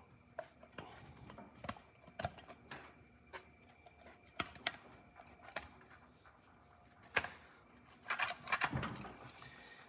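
Old head gasket being pried and peeled off a Subaru Sambar's engine block by hand: scattered small clicks and ticks as it works loose, with a run of crackling about eight seconds in.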